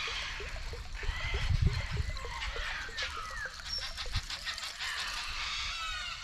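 Birds chirping and calling in short gliding notes, over low rumbles and knocks that peak about a second and a half in.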